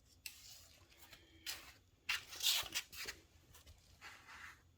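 Rustling and crinkling handling noises in several short bursts, the loudest about halfway through, as small parts and their packaging are handled.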